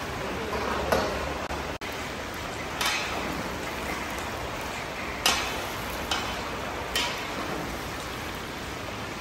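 A giant kazan of plov hissing steadily as it cooks, with a long-handled metal skimmer scraping and knocking against the pot about four times.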